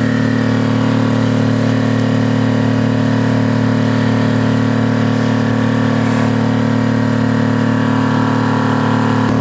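Boat engine running at a constant speed, a steady drone that stays at one pitch throughout.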